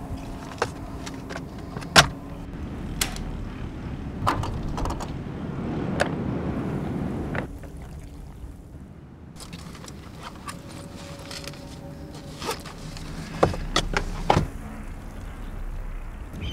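Car sounds: a series of sharp clicks and knocks from doors and handling, the loudest about two seconds in and a cluster near the end, with a low rumble for a few seconds around the middle.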